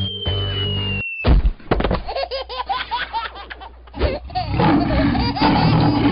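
Cartoon sound effects: a falling whistle ends in a heavy thud about a second in as the animated tiger hits the road. It is followed by a string of short clicks and squeaky chirping effects.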